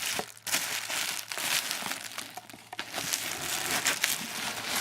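Packing material crinkling and rustling with irregular crackles as a box is unpacked by hand.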